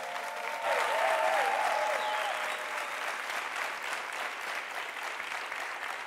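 Studio audience applauding, swelling about a second in and then slowly tailing off.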